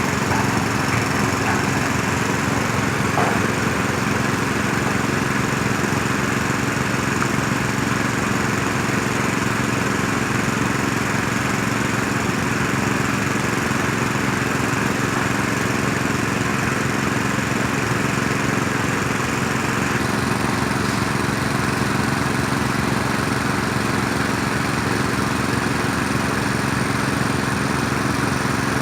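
Heavy diesel engine of construction machinery running at a steady speed.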